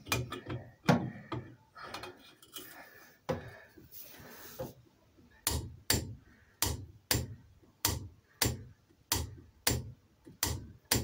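Sharp knocks or clicks, irregular over the first few seconds, with a brief rushing noise about four seconds in, then a steady run of sharp clicks a little under two a second through the second half.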